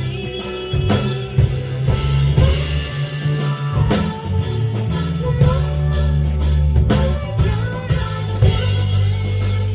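A live band playing an indie rock song: drum kit keeping a steady beat under electric guitar and bass.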